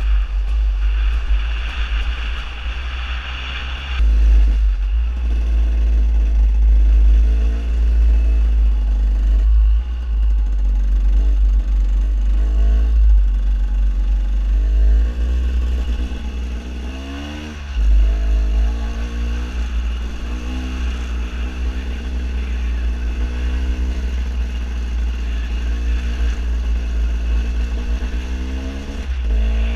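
KTM 250 EXC two-stroke enduro engine running under way on a dirt trail, revving up in pitch several times as the throttle opens, over heavy wind rumble on the microphone.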